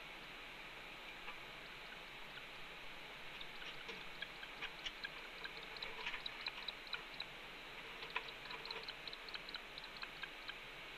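Twigs in a red-tailed hawk stick nest crackling and clicking as hawks shift about on them: scattered light clicks over a steady hiss, thickening from about three seconds in.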